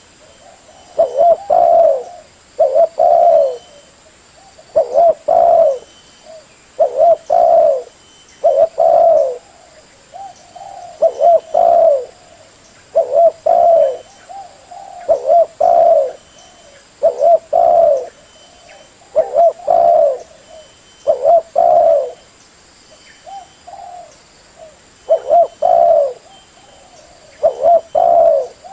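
Spotted dove (Spilopelia chinensis) cooing over and over, a phrase of two or three coos about every two seconds: the call used as a lure for spotted doves.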